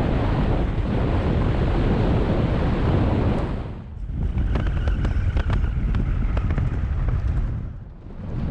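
A 4WD driving on a forest road: tyre, road and wind noise buffeting the microphone, swelling and easing in waves, with scattered ticks in the middle stretch.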